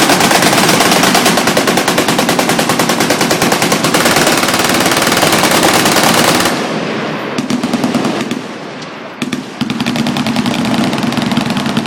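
Machine guns firing in long, rapid overlapping bursts. About six and a half seconds in, the firing thins out into separate shorter bursts with brief pauses between them.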